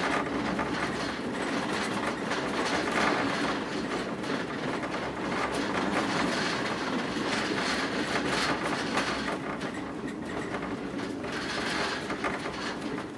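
Pesa Dart electric train heard from inside the passenger car while running at speed: a steady rumble and hiss with frequent clicks of the wheels over the rails.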